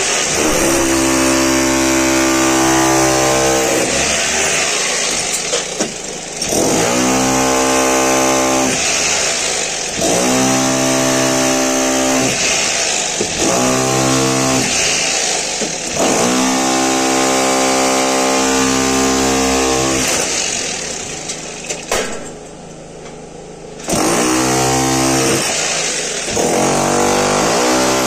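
Electric rotary hammer with a chisel bit chipping out a masonry partition wall, run in bursts of a few seconds with short pauses, the motor rising in pitch as each burst starts.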